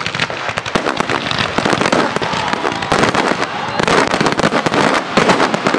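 Fireworks going off in a rapid, continuous barrage of bangs and crackles.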